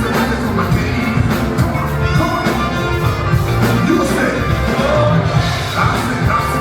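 Live gospel worship music: a full band with drums and a strong bass, with singing over it.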